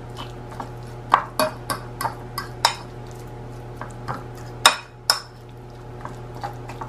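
A metal fork mashing oil-packed sardines in a ceramic bowl, its tines clinking and scraping against the bowl in irregular taps, with one louder clink a little past the middle.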